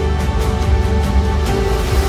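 Instrumental background music: held notes over a steady beat.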